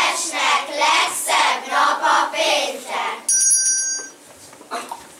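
Children's voices in a loud, rhythmic group chant, with syllables coming in regular pulses about twice a second. About three seconds in, a short, high electronic ring of several steady tones sounds for under a second.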